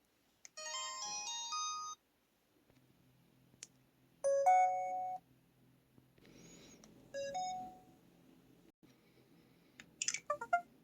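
LG Cyon feature phones' built-in system alert sounds played through the phone's small speaker. There is a short chime of several notes at once, then two-note electronic beeps at about four and seven seconds in, and near the end a quick run of falling tones with clicks.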